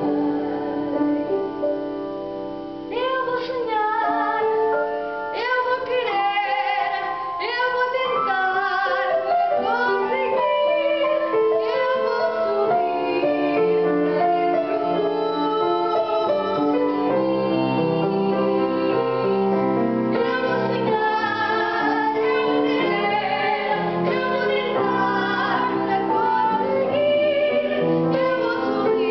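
Grand piano accompaniment with a woman singing over it. Her voice comes in about three seconds in, with vibrato on the held notes.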